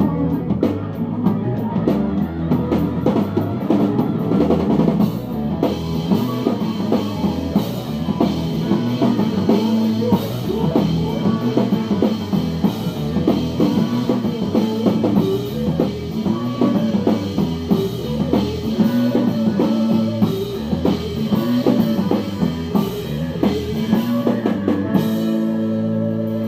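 Live rock band playing, led by a busy drum kit with bass drum and cymbals under electric guitar and bass. About a second and a half before the end the drumming stops and a single held chord rings on.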